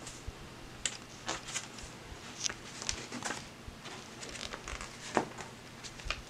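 Paper pages of a LEGO instruction booklet being turned and handled, a scattered series of soft rustles and taps.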